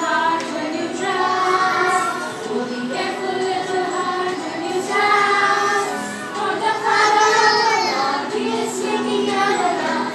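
A group of young children singing together in unison, with long held notes.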